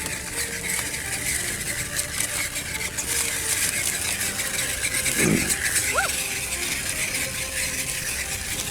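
Small electric RC rock crawler driving over ice and rocks, a steady rattling and crackling of its tyres and chassis, with a brief swooping sound about five seconds in.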